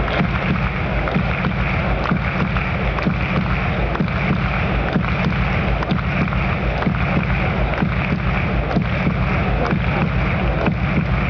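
Steady murmur of a large indoor arena crowd, many voices talking at once, with scattered faint clicks and knocks.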